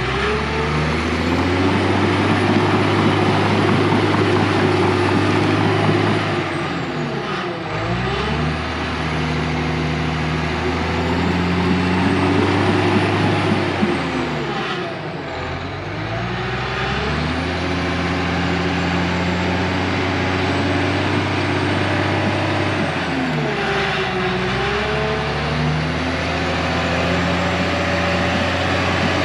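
Crawler bulldozer's diesel engine working under load as it pulls a tile plow through the ground. The engine speed sags three times, about every eight seconds, and picks back up each time.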